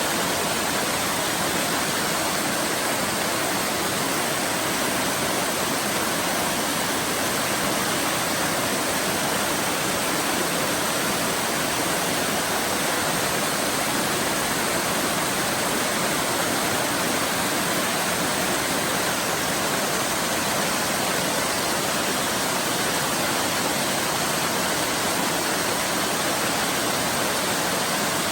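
Waterfall pouring in a steady rush of falling water.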